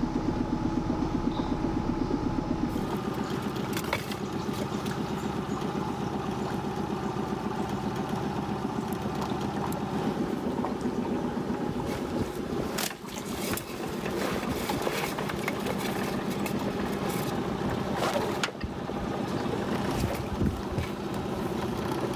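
Dinghy outboard motor running steadily under way. The sound briefly drops about halfway through, then carries on at the same pace.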